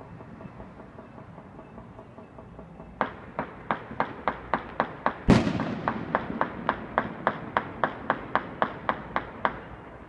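Celebratory gunfire: a steady run of about twenty sharp shots, about three a second, starting about three seconds in and stopping near the end. One much louder bang with a long rumbling echo comes a little over five seconds in.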